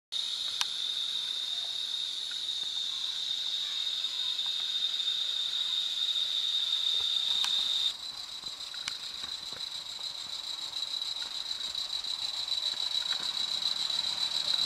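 Gauge 1 live-steam model tank locomotive running on garden track with goods wagons, with a few faint clicks from the wheels and rails. A steady high-pitched insect trill sounds over it, the loudest thing heard.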